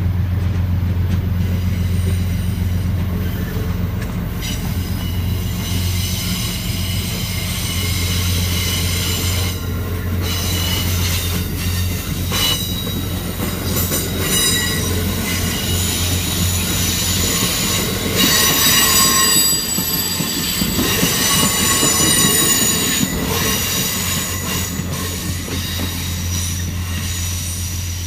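Amtrak Amfleet passenger cars rolling past on a curve, their wheels squealing against the rails in high, wavering tones that grow loudest in the second half, with occasional clicks over rail joints. A steady low drone lies underneath.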